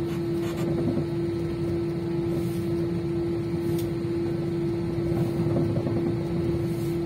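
Steady cabin noise inside an Airbus A320 on the ground before takeoff: an even rush of air with one constant droning tone.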